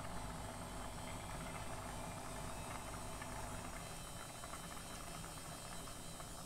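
Thick pot of rice and lentils bubbling at a simmer: a dense run of small pops and crackles over a steady hiss, the starchy base cooking down.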